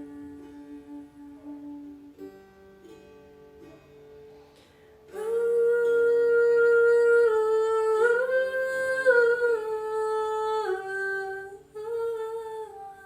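Meditative music: soft sustained tones and a few plucked string notes, then about five seconds in a voice comes in loudly, humming long held notes that step slowly up and down in pitch.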